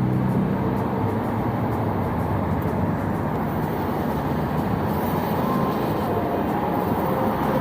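Loud, steady noise of a motor vehicle running close by, with a low engine hum that fades away in the first half-second.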